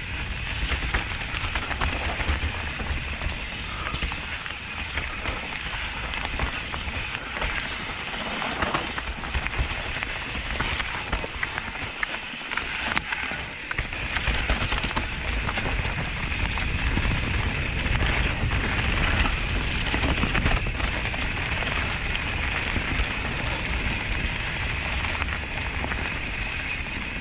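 Mountain bike riding fast down a dirt singletrack, its tyres rolling and crackling over dry leaf litter, with wind rushing over the helmet camera's microphone and the bike rattling over the bumps.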